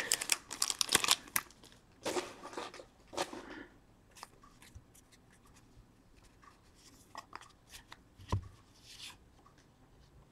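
Crinkling and tearing of a trading card pack being opened during the first three and a half seconds, then faint clicks and rustles of the cards being handled, with one sharper knock a little past eight seconds.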